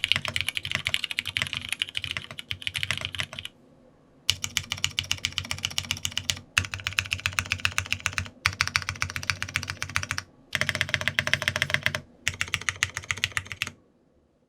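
Fast typing on a custom tenkeyless mechanical keyboard with lubed Cherry MX Brown switches, PBT keycaps and an aluminium plate. It comes in quick runs of keystrokes broken by short pauses, and the typing stops near the end.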